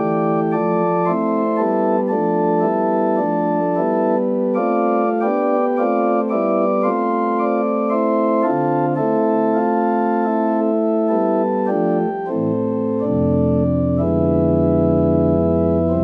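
Organ voice of a Kawai CA67 digital piano playing a moving line of held chords whose notes sustain without dying away. About thirteen seconds in, a deep bass comes in under them.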